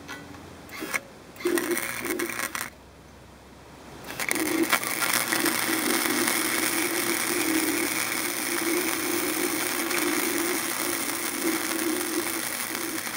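Flux-core wire-feed arc welding on steel square tubing with a 90-amp Harbor Freight flux welder. Two short tack welds crackle in the first few seconds, then about four seconds in the arc runs as a steady crackling, sputtering bead.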